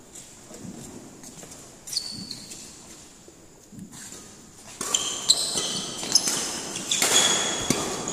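Badminton rally on an indoor court: sharp racket hits on the shuttlecock and short high squeaks of court shoes on the floor. It is sparse at first and gets much busier from about five seconds in.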